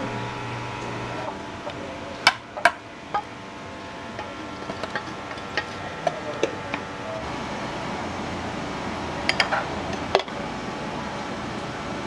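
Restaurant kitchen clatter: sharp clanks and clinks of metal pans, ladles and dishes, two loud ones about two seconds in and a quick cluster near the end, over a steady drone of kitchen equipment. A humming tone in the drone stops about a second in.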